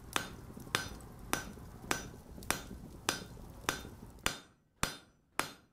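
Hammer blows on an anvil in a steady, even rhythm, about ten ringing strikes at a little under two a second. The background hiss drops away about four seconds in.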